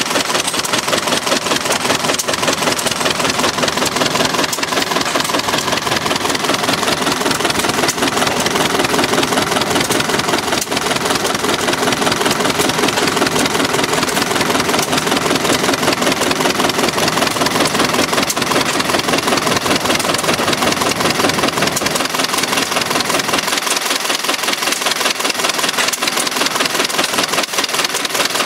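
Cut-away Ford Model A four-cylinder flathead engine running steadily, with a rapid, even mechanical clatter.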